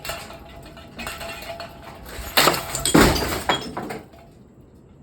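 A running 1994 Hunter Piedmont ceiling fan being smashed with a part from an earlier wrecked fan: clattering, breaking crashes, loudest about two and a half and three seconds in, dying away after about four seconds.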